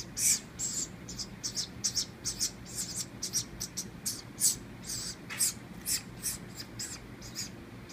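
Baby woodpecker's begging calls: short, hissy, high-pitched bursts repeated about three times a second, unevenly spaced.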